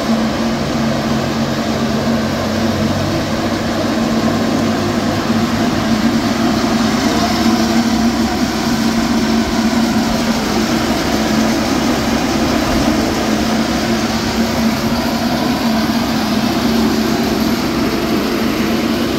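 Portable axial ventilation fans running steadily: an even rush of air with a constant hum under it.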